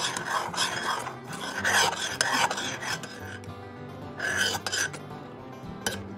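Metal spoon scraping around a saucepan as it stirs thick oatmeal, in rasping strokes: a run of them in the first three seconds, another about four seconds in and a short one near the end. Soft background music plays underneath.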